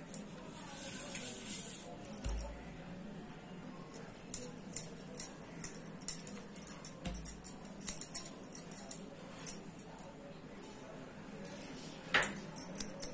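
Bangles jingling and clinking on a wrist while a hand kneads and presses a ball of stiff dough on a stone countertop, with irregular light ticks and a couple of low thumps.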